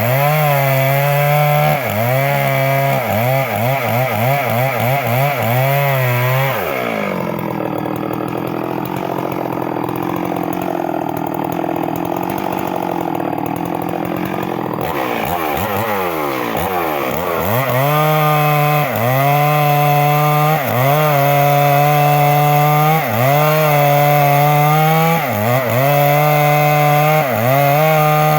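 Two-stroke chainsaw running at high revs while cutting wood. Its engine note keeps dipping and recovering as the chain bites. From about 7 s to 15 s it is pulled down into a long, lower, rougher stretch under heavier load, then it revs back up.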